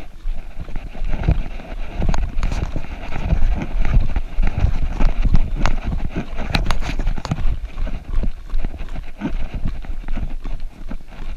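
A runner's footfalls on a dirt forest trail: quick, rhythmic thuds at a running pace over a steady low rumble.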